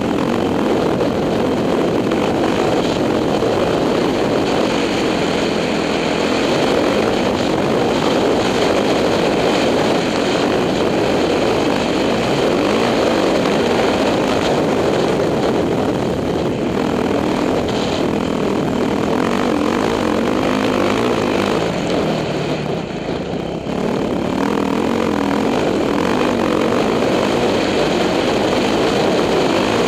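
2006 Yamaha YZ450F's single-cylinder four-stroke engine running under throttle as the dirt bike is ridden along a trail, heard from on board. It eases off briefly a little past two-thirds of the way through, then picks up again.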